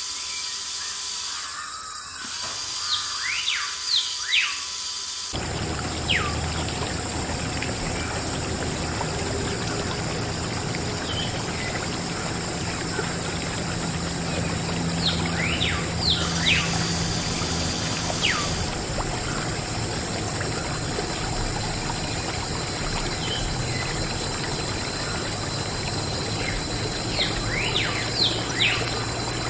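Water pouring steadily from a miniature belt-driven water pump's outlet pipe, starting about five seconds in, with birds chirping now and then throughout.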